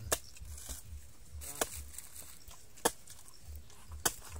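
Machete chopping into the husk of a young coconut: four sharp strikes, about one and a quarter seconds apart.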